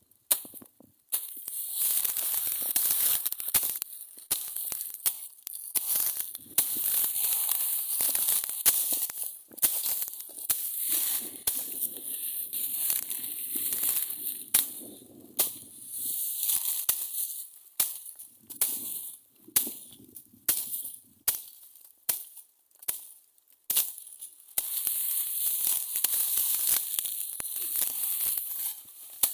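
Dry crackling and rustling noise, hissy and broken by many sharp crackles that cut in and out irregularly.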